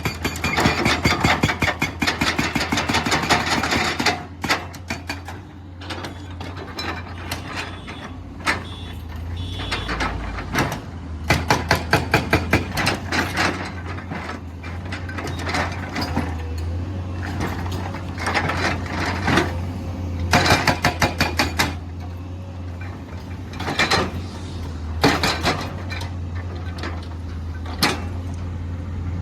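Hydraulic breaker on a Komatsu PC210 excavator hammering in bursts of rapid blows, longest in the first few seconds, then in several shorter runs. Under it is the excavator's steady diesel engine hum.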